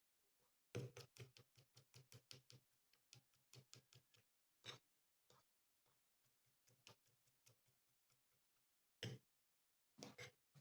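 A quick run of light sharp taps, about six a second for some three seconds, then scattered single taps.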